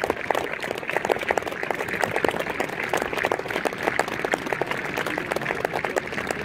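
Crowd applauding, many people clapping at once in a steady, dense patter.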